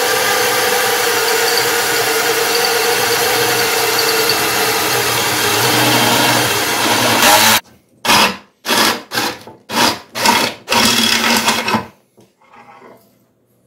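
Power drill running a twist drill bit through thin sheet metal, a steady cutting whir for about seven and a half seconds, then a run of about six short bursts before it stops near the end.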